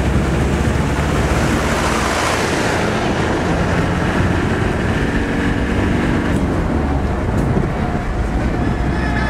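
A moving road vehicle heard from inside, engine and tyre noise with wind rushing past an open window, loud and steady.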